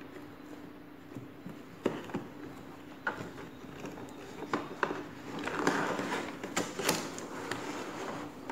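Cardboard drone box being opened by hand: a few sharp clicks and scrapes as the taped end flap is pulled open, then a stretch of scraping and rustling as the plastic inner tray slides out. A faint steady hum runs underneath.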